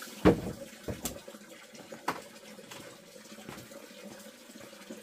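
Faint, steady running water, with a short thump just after the start and a couple of light clicks about one and two seconds in.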